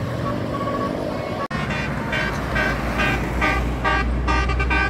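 Bus 'telolet' multi-tone musical horn playing a quick tune of short, repeated notes over the low rumble of the bus engine, starting about a second and a half in after a stretch of traffic noise.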